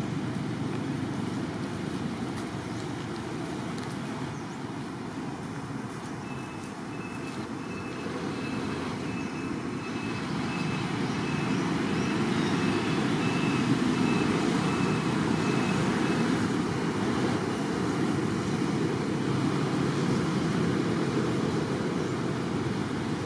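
Steady low outdoor background rumble, of the kind distant road traffic makes, growing a little louder partway through. A faint thin high tone runs through the middle, and the whole sound cuts off suddenly at the end.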